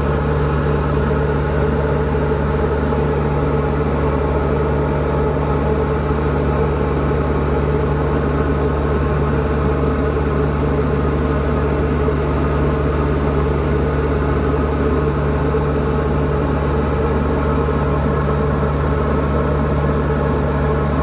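Diamond DA40 single-engine light aircraft's engine and propeller droning steadily in flight, heard from inside the cockpit.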